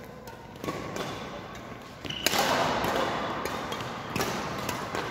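Badminton rally: a series of sharp hits of rackets on the shuttlecock and players' footsteps on the court floor, echoing in a large hall. The sound gets louder and busier a little after two seconds in.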